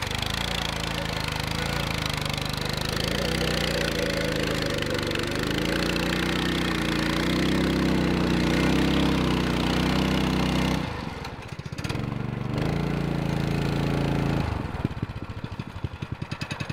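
An engine running, its pitch shifting up and down. It drops off briefly about eleven seconds in, comes back, then settles into a regular pulsing beat near the end.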